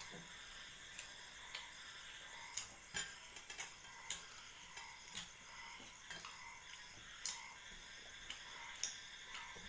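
Quiet eating with the hands at a table: fingers tearing luchi and scooping curry on stainless steel plates, giving scattered soft clicks and taps, a few of them sharper.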